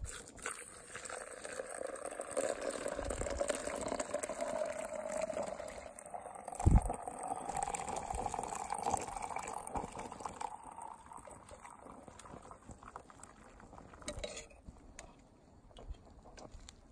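Liquid poured steadily into a container, the pitch of the pour rising slowly as the container fills, fading out about fourteen seconds in. A single dull thump cuts in about seven seconds in.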